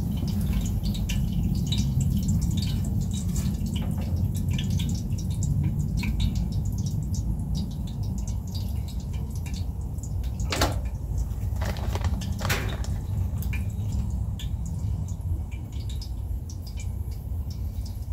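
Rolled tacos frying in hot oil in a Dutch oven: a steady scatter of small sizzling pops and crackles over a low steady rumble. Louder pops come about ten and a half seconds in and twice more within the next two seconds.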